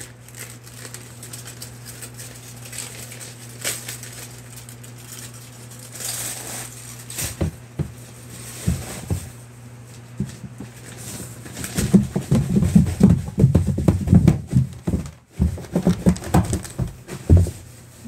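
Handling noise while a package is unpacked and its contents looked over: scattered faint clicks and rustles over a steady low hum, then about twelve seconds in a run of loud, close bumps and rustling that lasts some five seconds.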